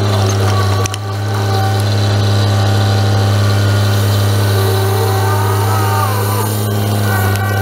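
Grapple truck's engine running at a steady, held speed while the knuckleboom loader's grapple picks up brush and swings it onto the truck. A faint whine rises and falls about five seconds in.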